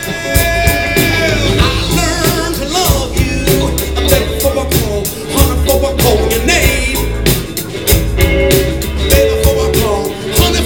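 Live blues band playing, recorded loud on a small camcorder: electric guitar with bent, wavering notes over bass and a steady drum beat, with singing at times.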